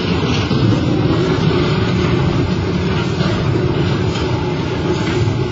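Heavy machinery running in a ship-breaking yard, a loud, steady rumble with a few faint knocks scattered through it.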